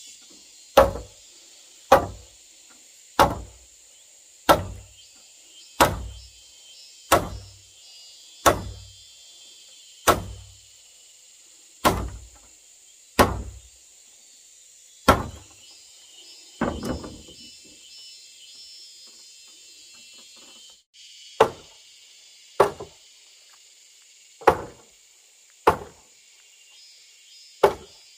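Hammer blows on a timber beam of a wooden house frame, knocking the beam down into its joint with a post: sharp, evenly spaced knocks about one every 1.3 seconds. After about a dozen strikes there is a pause of about four seconds before the knocking resumes.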